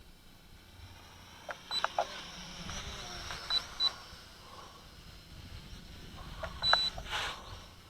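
Small toy quadcopter's propellers whining faintly, the pitch drifting up and down as it flies. Sharp clicks and short high beeps come in clusters about two seconds in, around three and a half seconds, and loudest near the end.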